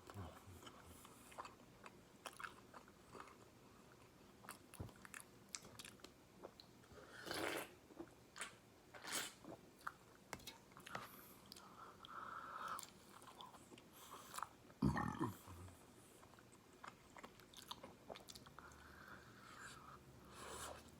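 Close-up chewing and biting of breaded boneless fried chicken, with crunching and many small mouth clicks. One louder, lower sound comes about two-thirds of the way through.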